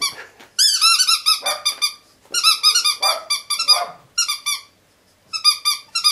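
Pet ferret squeaking in excited play, with quick runs of sharp, high-pitched squeaks, each rising and then falling, broken by short pauses.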